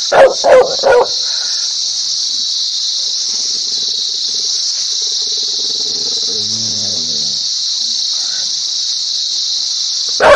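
A dog barks three times in quick succession in the first second, over a steady high-pitched hiss that carries on after the barks.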